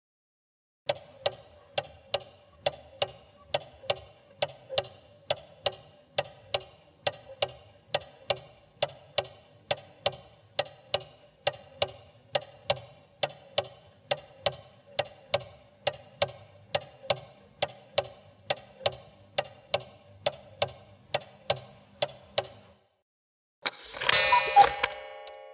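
Clock ticking steadily, about two ticks a second, starting about a second in and stopping suddenly near the end. After a short pause comes a brief, loud burst of metallic clatter with ringing tones.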